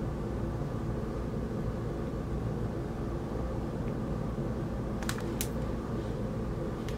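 Steady low hum of background noise, with a few sharp crackles of magazine paper as a page is turned about five seconds in.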